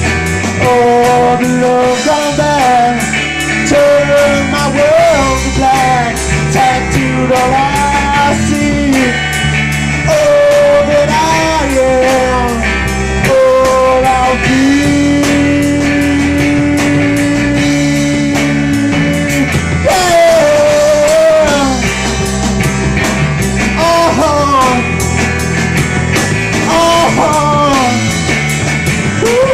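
Rock music: a full band with a wandering, gliding melodic lead line on top, which holds one long steady note about halfway through.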